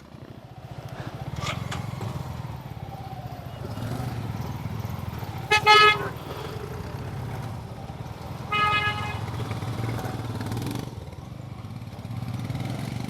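Motorcycle engine running steadily, with a horn honking twice, about three seconds apart, the first roughly halfway through.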